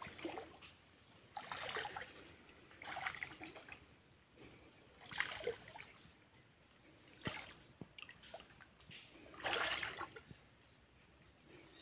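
Footsteps squelching in soft wet mud, a short wet squelch every second or two.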